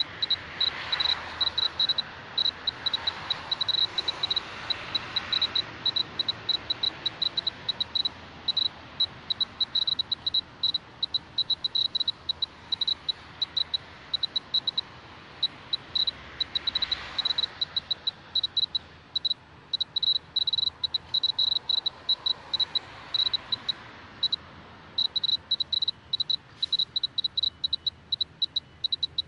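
Clear-Pulse Mr. Gamma A2700 gamma dosimeter's buzzer giving short, high, single-pitch beeps at random, uneven intervals, one for each detected gamma count, over a soft background hiss that swells and fades a few times.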